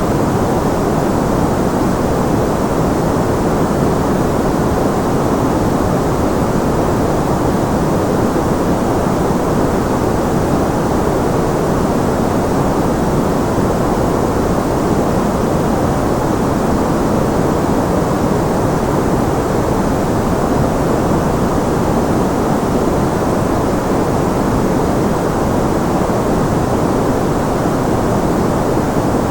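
Steady generated white noise, an even and unchanging rush with no events in it. It is fuller in the low and middle range than at the top.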